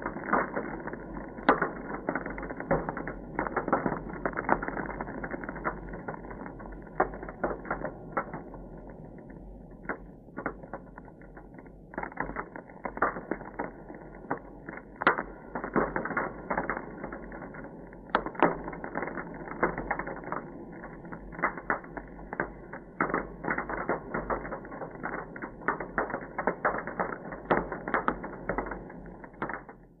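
Ice cracking, heard underwater: a dense, irregular run of sharp cracks and pops over a steady hiss, thinning out for a few seconds about a third of the way in.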